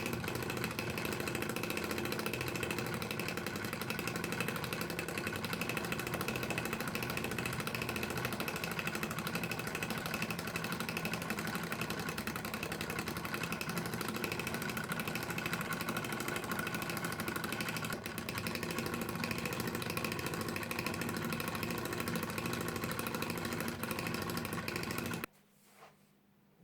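A homemade lathe's small electric motor running steadily with a constant hum, then switched off and stopping abruptly about 25 seconds in.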